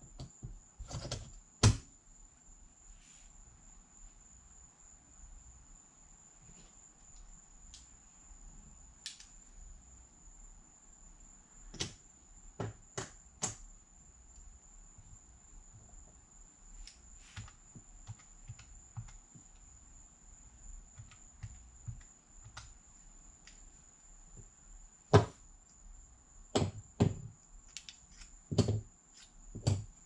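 Casino chips clicking as they are handled and set down on a felt craps table: scattered sharp clacks in small clusters with quiet stretches between. A faint steady high-pitched whine runs underneath.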